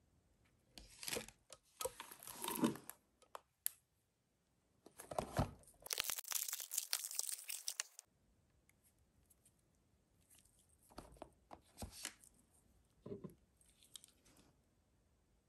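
Perfume packaging handled by hand: paper and plastic crinkling and tearing in bursts, with a longer tearing sound from about six to eight seconds in. Later come lighter rustles and small clicks as glass perfume bottles are handled.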